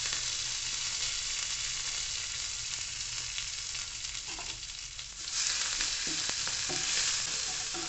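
Crushed garlic, cumin, curry leaves and coriander leaves sizzling in hot oil in a non-stick frying pan, with tempering mustard seeds and urad dal. The sizzle is a steady hiss that grows louder about five seconds in, when a wooden spatula stirs the pan.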